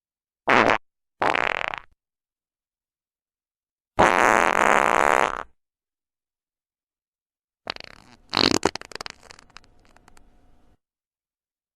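Four fart sound effects in a row, separated by dead silence: two short ones in the first two seconds, a longer steady one about four seconds in, and a choppy, crackling one near eight seconds in that trails off.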